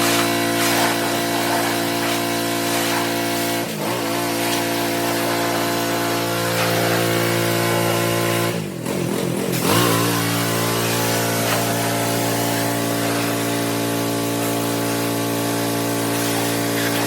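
An engine running at a steady speed, its pitch wavering briefly about four seconds in and again around nine seconds in.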